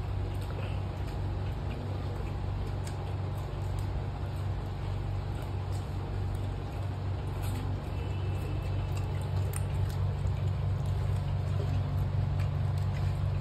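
A steady low hum with faint, scattered little clicks and smacks of people eating with their hands.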